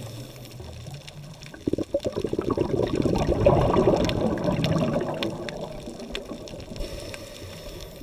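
Water heard through an underwater camera: a rush of water that starts about two seconds in, swells to its loudest in the middle and dies away, over a faint steady hiss.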